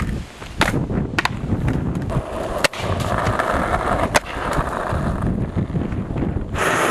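Skateboard wheels rolling over rough asphalt with a steady rumble, broken by several sharp clacks of the board slapping the pavement. A louder rush of noise comes in near the end.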